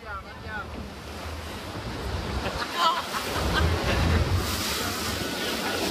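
Wind buffeting the microphone and water rushing past an open tour boat speeding on a river, over a low rumble, growing steadily louder.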